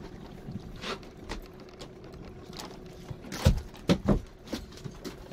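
Jigging reel being cranked as the metal jig is wound up to the boat, with light clicks and scrapes and a few sharp knocks and thumps about three and a half to four seconds in, over a faint steady hum.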